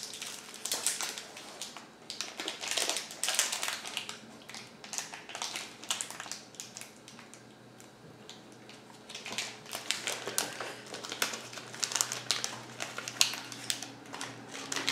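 Candy-bar wrapper crinkling as it is torn open and peeled back, in irregular bursts with a quieter stretch about halfway through.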